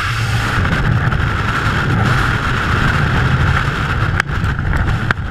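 Freefall wind rushing over a skydiver's camera microphone, a loud, steady buffeting noise. Two sharp snaps about four and five seconds in.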